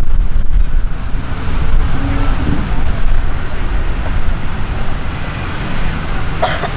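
Steady low rumble of outdoor street ambience: wind buffeting the microphone mixed with traffic noise. A brief, higher-pitched sound comes near the end.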